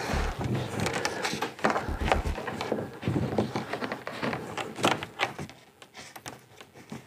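Irregular scraping, rustling and clicking of a transducer cable being pulled through a port in a plastic kayak hull, with a few dull knocks in the first couple of seconds.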